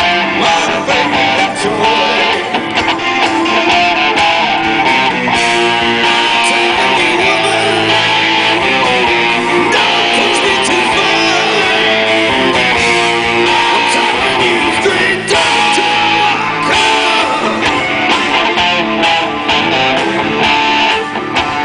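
Live rock band playing loudly, electric guitars to the fore over bass and a steady beat, heard from the audience in a concert hall.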